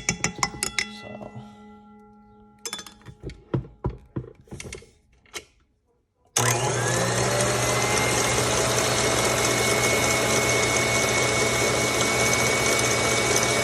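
A few clinks and knocks with short ringing, then about six seconds in an electric mixer is switched on. It spins up quickly and runs at a steady high speed, whipping instant espresso, sugar and water into a froth.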